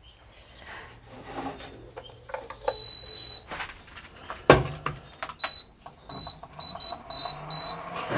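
Tabletop induction cooker beeping: one long high beep, then about six short beeps as its control buttons are pressed. About four and a half seconds in, a metal wok is set down on the cooker's glass top with a single sharp clank.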